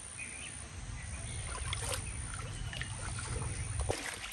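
Shallow stream water sloshing and splashing as people wade and grope with their hands in it, with a few small splashes between one and two seconds in. A low rumble runs underneath and stops near the end.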